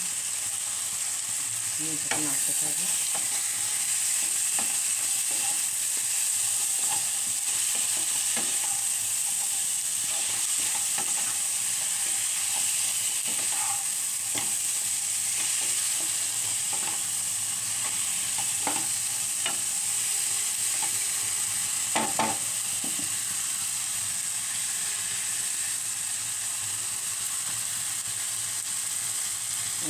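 Meat, sliced onions and spices sizzling in hot oil in a frying pan while a spatula stirs and turns them, with occasional clicks of the spatula on the pan and a short cluster of louder knocks about three-quarters of the way through.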